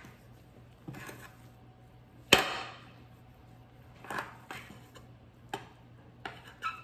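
Metal bench scraper chopping through bread dough and knocking on a granite countertop: several sharp knocks, the loudest about two and a half seconds in.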